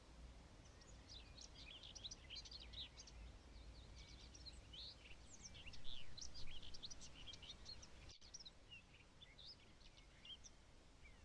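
Many birds chirping at once, a dense chorus of short high chirps that is busiest in the middle, over a faint low rumble.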